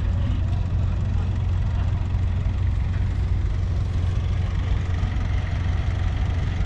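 1964 Fordson Dexta's 2.4-litre three-cylinder diesel engine idling steadily.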